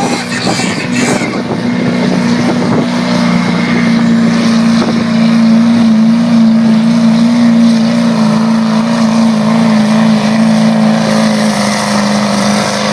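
A diesel truck engine running with a steady drone. It grows louder over the first few seconds and then holds.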